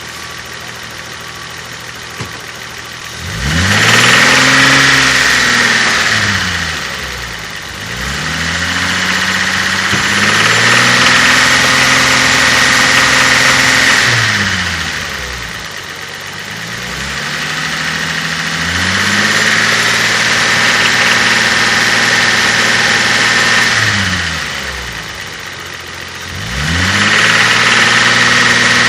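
Toyota 5M-GE inline-six engine idling, then revved up and held at raised speed four times, falling back between. It runs with a tapping, clacking noise whose cause the owner cannot place: lifters, knock or piston slap.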